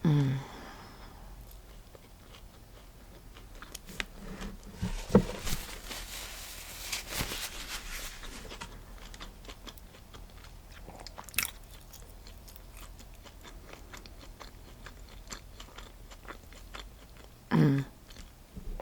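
Close-miked chewing and biting of a sourdough turkey-and-cheese sandwich: crunching bread crust and wet mouth clicks, with a brief voiced murmur at the start and again near the end.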